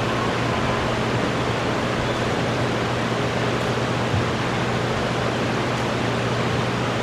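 Steady hiss with an even low hum beneath it, and one faint knock about four seconds in.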